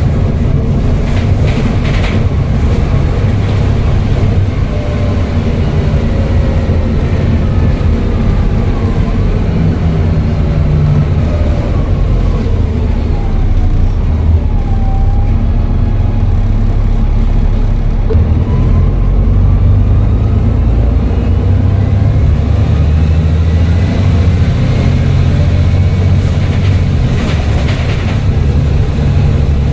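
Volvo B7TL bus's diesel engine running, with a turbocharger whistle above it; the whistle glides down in pitch about halfway through, then rises again.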